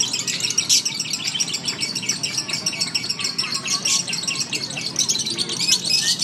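Several caged lovebirds chattering together in a continuous stream of rapid, high chirps: the long chattering song of contest lovebirds.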